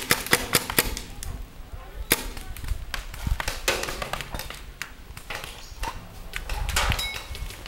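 Paintball markers firing in sharp pops: a quick string of shots in the first second, then scattered single shots.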